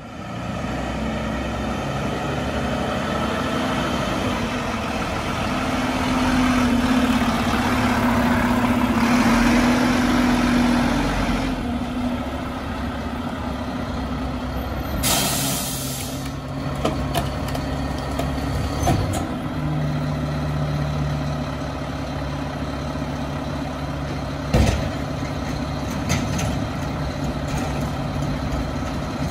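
Mack LR rear-loader garbage truck's diesel engine running, growing louder for several seconds, then a short air-brake hiss about halfway through and a sharp bang later on.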